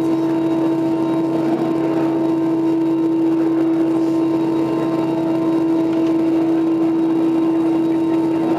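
Steady hum with one strong constant tone, heard inside an Airbus A321 cabin, over a rushing hiss of de-icing fluid sprayed against the fuselage and window.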